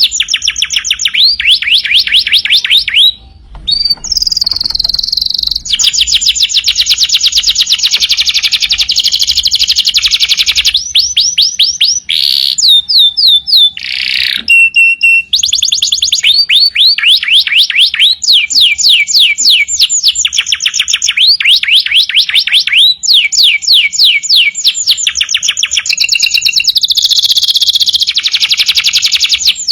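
Domestic canary in full, continuous song. It sings long rolling trills of fast, evenly repeated downward-sweeping notes, changing from one trill to the next, with a few held whistled notes about halfway through and a brief break about three seconds in.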